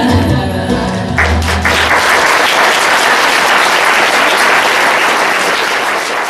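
Romani-style dance music ends on a final chord about a second in, its low notes dying away, and an audience breaks into steady applause that carries on to the end.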